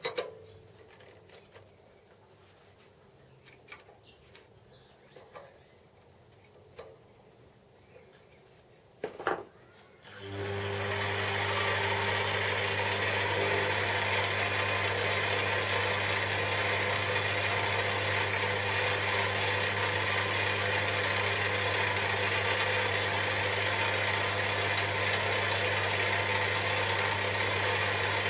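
A few light clicks and a sharp knock, then about a third of the way in a metal lathe's electric motor starts and runs steadily with a strong low hum and mechanical whir.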